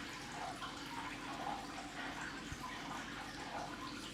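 Faint soft taps and light rustling of trading cards being handled and flipped through one by one.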